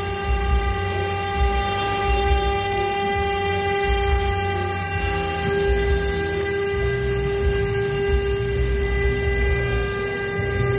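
A 2.2 kW CNC router spindle running at speed while milling an engraving, giving a steady high whine with an uneven low rumble underneath.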